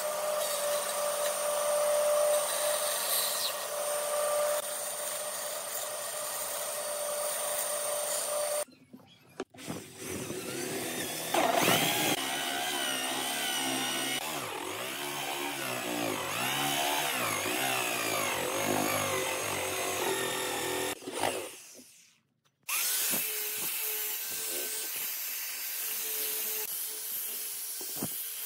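A bandsaw cutting a thick wooden board with a steady motor hum. After a short break, a corded electric drill bores a hole in wood with a wide boring bit, its pitch rising and falling with the load. After another short break, an angle grinder fitted with a sanding disc sands the wood.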